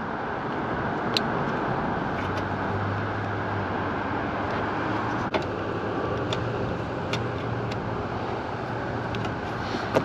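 Steady traffic-like outdoor rumble, with a low hum that comes in about a second and a half in and fades near the end. Over it are a handful of small sharp clicks of wiring connectors being handled at the unit's control board.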